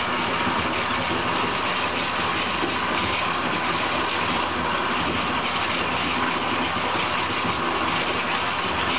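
Steady rushing of water in a bathtub, an even, unbroken noise with a faint low hum beneath it.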